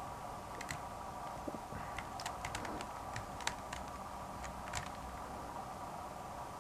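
A 3x3 Rubik's cube's layers being turned by hand, giving faint, sparse plastic clicks. A quick run of four clicks comes about two seconds in, and single clicks follow near three and a half and five seconds, over a faint steady hum.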